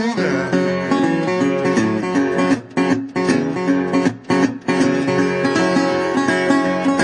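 Background music: a song played on strummed acoustic guitar, with a few brief breaks around the middle.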